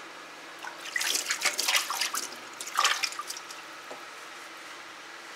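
Water splashing from a kitchen tap as hands are rinsed, in irregular splashes that start about a second in and stop after about two seconds.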